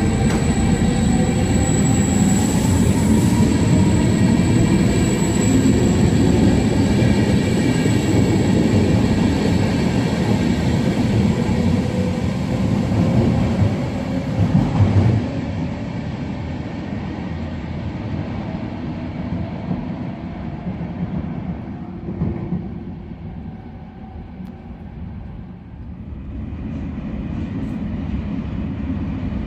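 Trenitalia double-deck commuter train pulling out of an underground station: wheels rumbling over the rails and the motors whining with a rising pitch as it picks up speed. After about fifteen seconds the sound drops to a fainter rumble echoing back from the tunnel.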